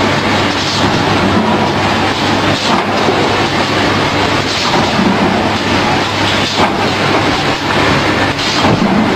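Automatic bucket screen printing machine running: a steady mechanical hum and clatter, with a louder rush about every two seconds.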